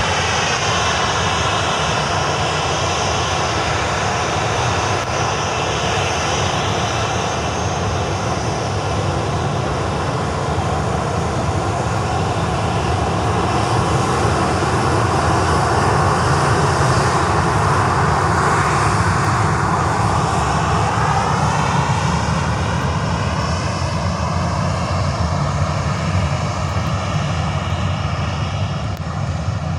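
Boeing 737-800's CFM56-7B turbofan engines running loud and steady during takeoff, with a whine over the roar that rises in pitch about two-thirds of the way through.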